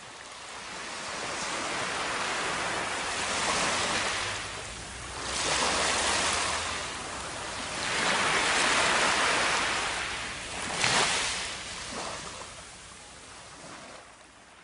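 Small waves washing up over sand at the shoreline, the surf swelling and drawing back about four times.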